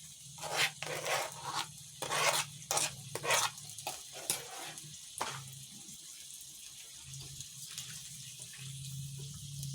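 Water splashing in short, irregular bursts for about five seconds, then stopping, leaving only a low steady hum.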